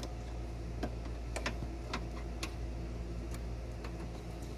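Scattered light metallic clicks and taps as a hand works a stuck, rusted cooler line fitting at the bottom of a radiator, over a steady low hum.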